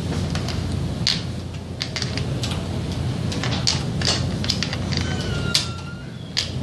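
Small plastic caps of a Munsell hue test clicking and tapping as they are picked up and set into a plastic tray, a string of irregular sharp clicks over a steady low hum.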